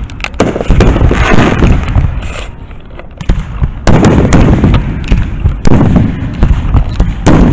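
Aerial display fireworks bursting overhead in quick succession: sharp booms with crackling between them, a short lull, then a loud burst about four seconds in, followed by more booms.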